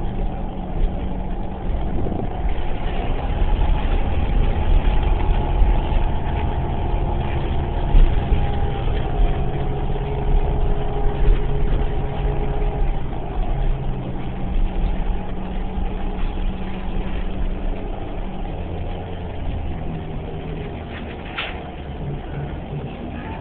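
Inside a 2011 New Flyer Xcelsior XDE40 diesel-electric hybrid transit bus under way: a steady low engine rumble with a higher whine that wanders slowly in pitch, easing off toward the end. A brief sharp click comes near the end.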